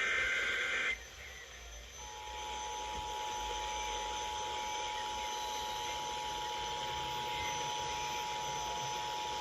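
Emergency Alert System header over radio hiss: the tail of a SAME digital data burst, a shrill warbling screech lasting about a second, then about two seconds in the two-tone EAS attention signal starts and holds steady. The attention signal heralds a spoken warning, here a tornado warning.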